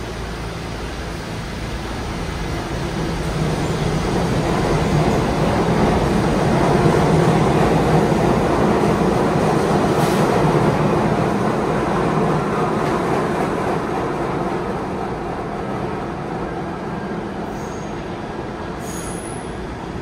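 Kawasaki R68A subway train pulling out of the station: its motors and wheels grow louder over the first few seconds, are loudest around the middle as the cars pass, then fade as it leaves. Brief high-pitched squeals come in near the end.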